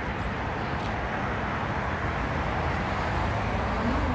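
Steady vehicle rumble with no distinct events.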